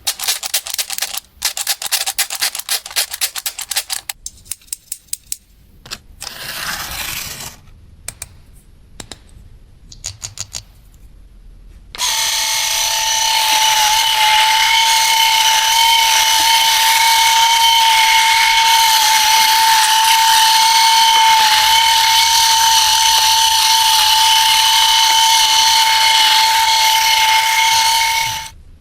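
Rapid clicking and rattling of small plastic toy parts, then, about twelve seconds in, a battery-powered toy starts a loud, steady, high whine that holds one pitch for about sixteen seconds before cutting off.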